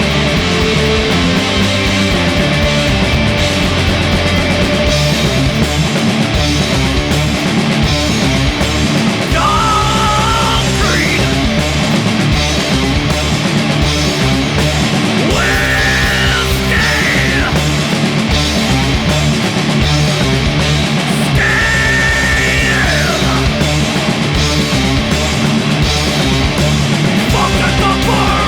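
Heavy, distorted stoner rock recording: full band of electric guitars, bass and drums playing at a steady loud level, with a high melodic phrase that bends upward in pitch coming back about every six seconds.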